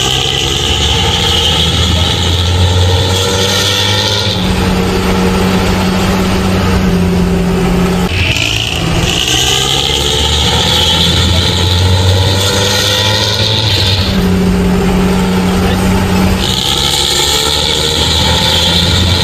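Engine running through an aftermarket exhaust with a deep, snoring growl and a tinny rasp. A higher rasping note rises slowly over several seconds, then gives way to the lower growl, in a cycle about every eight seconds.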